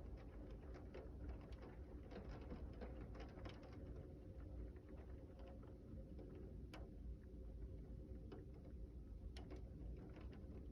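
Scattered raindrops ticking and pattering on nearby surfaces during a thunderstorm, irregular single clicks over a low steady rumble.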